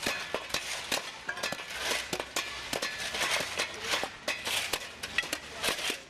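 Many shovels and ice scrapers chipping and scraping packed ice off a pavement: a crowd of irregular sharp metal knocks over a steady scraping noise, fading out at the very end.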